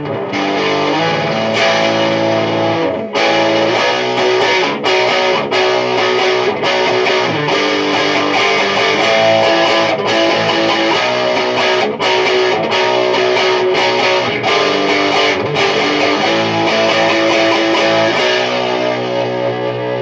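Electric guitar tuned to drop B, with a Bare Knuckle Painkiller neck pickup split to single-coil, played through a Mesa/Boogie Dual Rectifier amp at high gain: heavily distorted riffs and chords, heard through a camera microphone.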